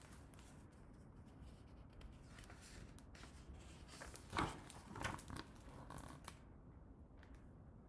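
Faint rustling of a picture book's paper pages as one page is turned and the book is handled, with the loudest rustle about four and a half seconds in.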